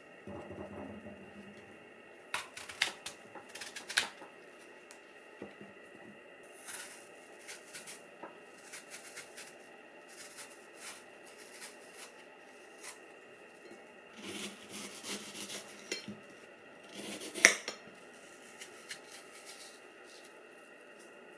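Scattered clinks and knocks of small hard objects being handled, with a busier stretch about two-thirds through and the sharpest clink a few seconds later. Under them runs a constant faint high whirring: the internal noise of a Panasonic Lumix DMC-FZ1000, picked up by its built-in microphone.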